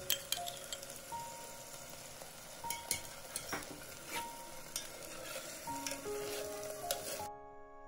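Tofu and vegetables sizzling in a pot with soy sauce just added, while a metal spoon stirs and clinks against the pot several times. The sizzling cuts off suddenly near the end.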